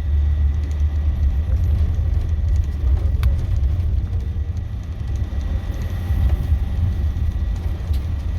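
Bus running, heard from inside the passenger cabin: a steady low rumble of engine and road, with a single sharp click about three seconds in.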